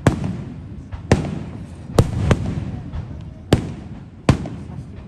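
Fireworks bursting: six sharp bangs at uneven intervals, each trailing off in a rumbling echo, two of them coming close together about two seconds in.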